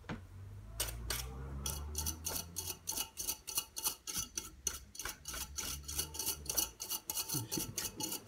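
A brush scrubbing dirt and dog hair from between a fan heater's fan blades, making quick rhythmic ticks at about four to five a second, with a low hum in the first few seconds.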